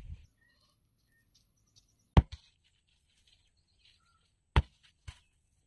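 Four sharp knocks in two pairs, a loud one followed quickly by a lighter one, about two seconds apart, with faint bird chirps in the quiet between.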